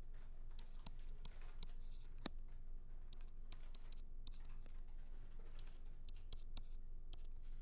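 Stylus tapping and scratching on a tablet screen as a chemical structure is hand-drawn: a string of sharp irregular ticks with light scraping between them, over a steady low hum.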